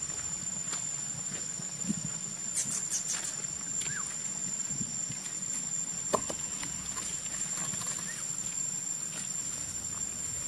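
Outdoor ambience dominated by a steady high-pitched insect drone, with scattered faint clicks and a few short chirps, and one sharper brief sound about six seconds in.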